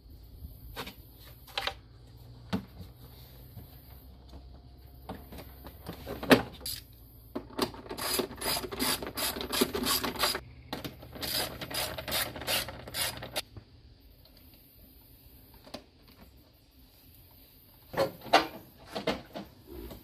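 Hand ratchet wrench clicking in two quick runs, each a few seconds long, as bolts are run down, with scattered single clicks and knocks of parts being handled around them.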